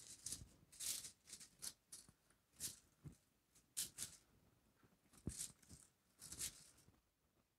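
Faint, irregular crinkling and rustling of aluminium foil as hands shift a whole carp and tuck onion slices under it. The sound comes as short scattered crackles.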